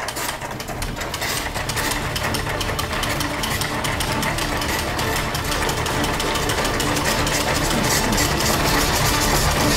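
Hand-cranked shaved-ice machine being turned fast, its blade grinding ice in a rapid, steady rattle that grows a little louder.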